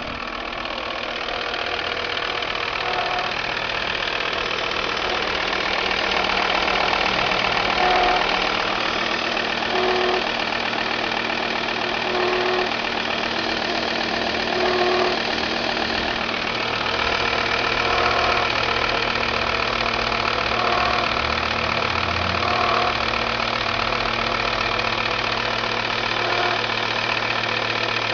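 Volvo V70 TDI's diesel engine running steadily, with a short pitched tone that comes back every two to three seconds. This is the strange noise whose cause the owner is asking about.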